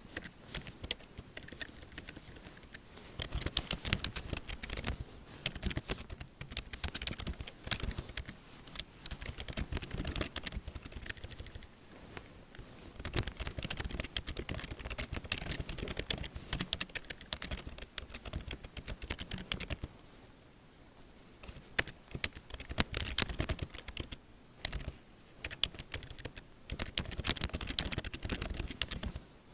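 Computer keyboard typing in fast runs of clicky keystrokes. About two-thirds of the way through the typing stops for a couple of seconds, gives way to a few separate clicks, then picks up again in a fast run.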